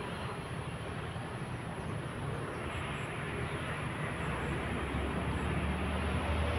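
Steady rumble of road traffic, growing louder over the second half.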